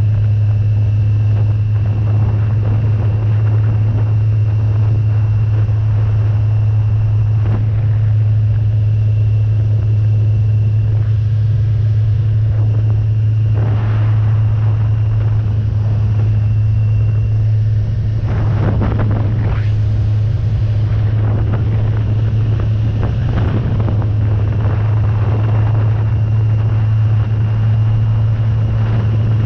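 Motorcycle engine running at a steady pitch, holding a constant cruising speed, with wind noise rushing over the microphone.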